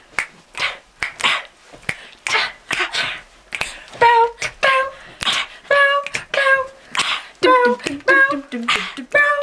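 Girls' voices making a rhythmic vocal beat without words: short breathy sounds at an even pace, then from about four seconds in short sung syllables stepping between a few notes.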